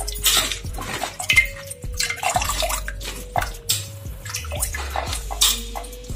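Tamarind water pouring and dripping through a sieve into a metal pan as the soaked pulp is pressed by hand, with irregular splashes and trickles.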